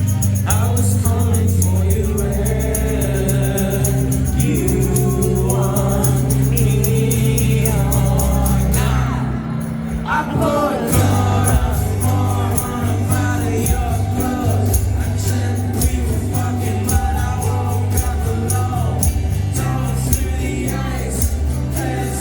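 Live acoustic rock band playing a song, with singing, sustained low notes and a steady high percussion beat; the music thins briefly about nine seconds in, then picks up again.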